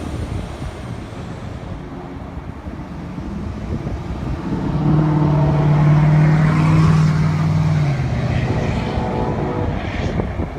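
Brightline passenger train passing on the northbound track, its diesel-electric locomotive's steady engine drone swelling loudest around the middle and fading after.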